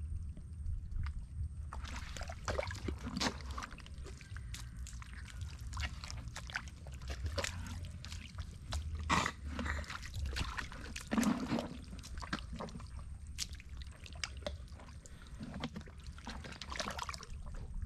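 Wet mud and shallow water squelching and sloshing in irregular bursts, with many short clicks, over a steady low rumble.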